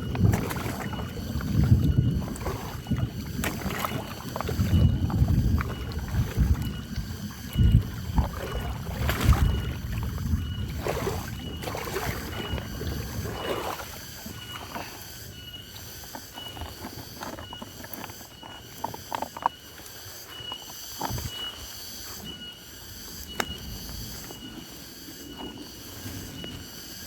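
Gusty wind rumble on the microphone with scattered knocks for about the first half, then quieter, over a steady, evenly repeating high chirping.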